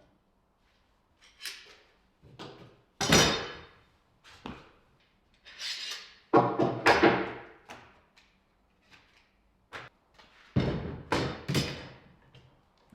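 An irregular series of knocks and clunks, about eight of them, some ringing briefly: workshop tools and parts being handled and set down. The loudest come about three seconds in, midway and near the end.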